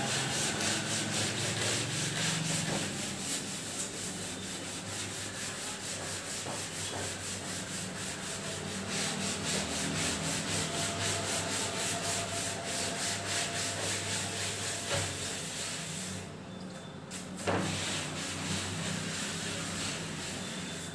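Cloth duster wiping chalk off a chalkboard, with repeated rough back-and-forth rubbing strokes. It stops briefly near the end, and a short knock follows before the wiping goes on.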